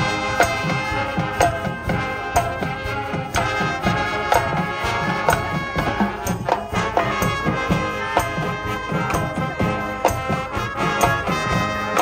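High school marching band playing: brass carrying the tune over a steady beat of drums and percussion.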